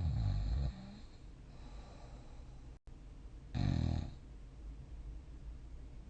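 A sleeping person snoring: two loud, low snores about three and a half seconds apart, with quieter breathing in between.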